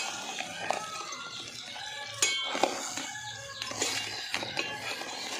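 Metal ladle stirring crab pieces in a steel pot, scraping and clinking against the pot's side several times, the sharpest clinks a little over two seconds in.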